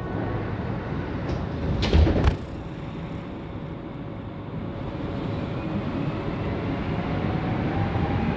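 Montreal Metro Azur train's sliding doors closing with a loud thud about two seconds in, then the rubber-tyred train pulling out of the station, its running noise building with a faint rising whine as it speeds up.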